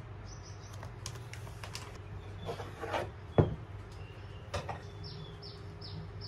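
Kitchen handling sounds on a wooden board: a few light knocks and a brief rustle, the loudest a single sharp knock about three and a half seconds in, over a low steady hum. Short high chirps of birds come and go in the background.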